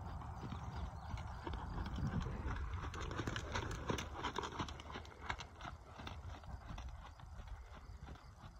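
Hoofbeats of a horse trotting on a sand arena, loudest about three to five seconds in as it passes close by.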